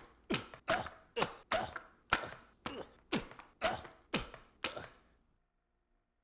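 Claw hammer blows to a man's head, about two a second, each a short wet thunk, stopping about five seconds in.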